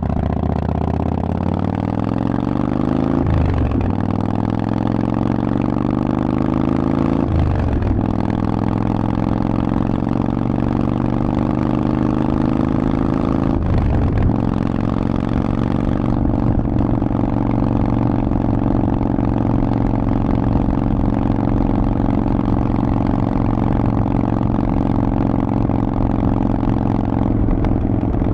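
Harley-Davidson Forty-Eight's air-cooled 1200 cc V-twin through Vance & Hines exhaust pipes, pulling up through the gears. Engine pitch climbs in each gear and breaks at three upshifts, about 3, 7 and 14 seconds in, then holds steady at cruising speed.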